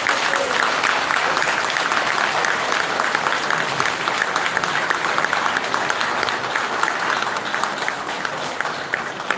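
Audience applauding, a dense mass of clapping that fades away near the end.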